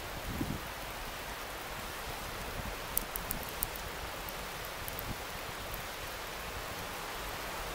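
Steady rushing noise, with a few faint sharp ticks about three seconds in.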